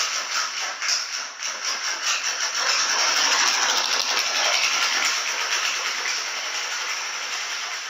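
Motorcycle with a loud aftermarket exhaust running, a dense rattling exhaust noise without a clear pitch that fades a little toward the end.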